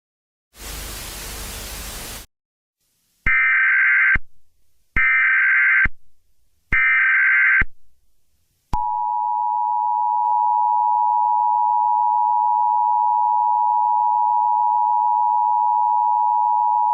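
Emergency Alert System alert opening: a short burst of static, then three identical screeching SAME digital header bursts about a second and a half apart, then the steady two-tone EAS attention signal held for about eight seconds.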